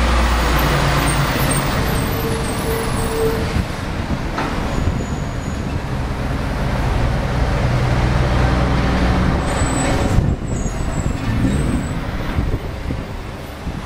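Heavy cab-over semi-trailer truck with curtain-sided trailers driving past close by: steady diesel engine sound with tyre and road noise.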